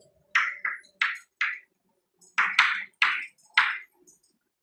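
Chalk writing on a chalkboard: about eight short strokes, four in a quick run near the start and four more just past the middle, as a word is written.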